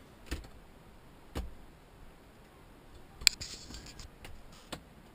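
Handling noise: four sharp clicks or knocks spread over a few seconds. The loudest comes just past the middle and is followed by a second of rustling.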